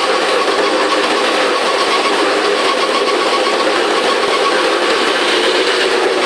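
Wet grinder running steadily, grinding idli and dosa batter: a constant mechanical whir with a thin steady tone riding on it.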